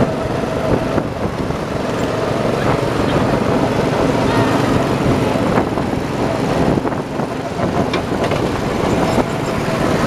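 Small go-kart engines running at racing speed, heard from a moving kart on the track, with a steady engine drone throughout.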